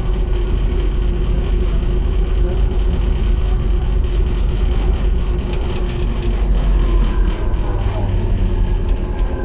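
AnsaldoBreda driverless metro train running through a tunnel, heard from inside the car: a steady low rumble of wheels on rail with a constant hum. A faint whine gliding in pitch joins in near the end.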